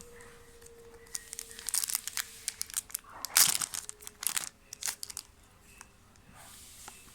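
Foil wrapper of a Pokémon card booster pack crinkling and tearing as it is opened by hand, in irregular bursts with the loudest rip about three and a half seconds in.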